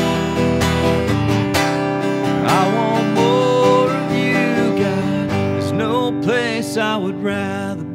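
Acoustic guitar strummed steadily in a slow worship song. A man's voice joins about two and a half seconds in, singing long wavering held notes over the guitar.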